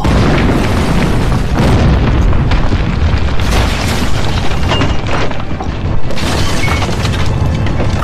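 Loud, deep booming rumble with a few sharper crashes, about 1.5, 3.5 and 6 seconds in, over dramatic background music.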